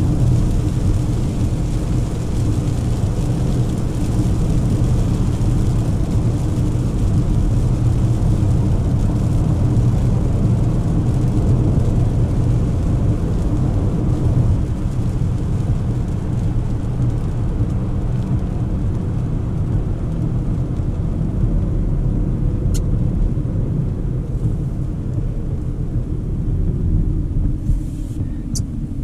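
Cabin noise of a 2024 Volvo XC40 B3, a mild-hybrid petrol four-cylinder, driving on a wet road: a steady low rumble of engine and tyres with a hiss of water spray from the tyres. The hiss eases in the second half, and there are a few faint clicks near the end.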